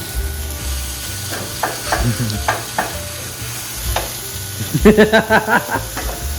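Onion sizzling as it is stir-fried in a hot pan, with a utensil clicking against the pan. About five seconds in comes a quick run of loud, ringing clatters.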